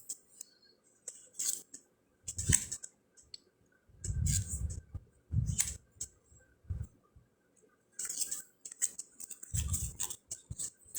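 Round cardstock fortune cards being handled and flipped through: a string of short, irregular slides and taps as cards are moved and laid down.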